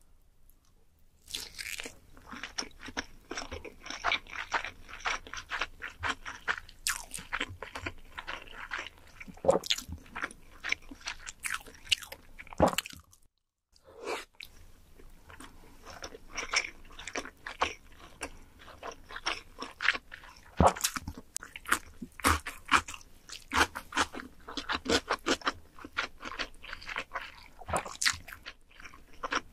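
A person chewing sushi with wet, sticky mouth noises: a steady run of irregular smacks and clicks as the rice and fish are bitten and chewed. The sound drops out briefly about halfway through, then the chewing resumes.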